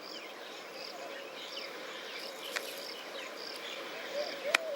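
Insects chirping in a steady, even rhythm of about two chirps a second, cricket-like, with two sharp clicks, one about halfway through and one near the end.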